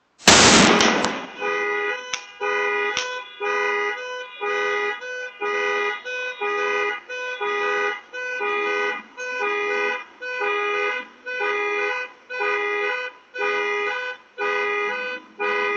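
A large firecracker goes off with one loud bang at the start, with two sharp cracks soon after. A car alarm then honks its two-tone horn in a steady on-off pattern, about once a second.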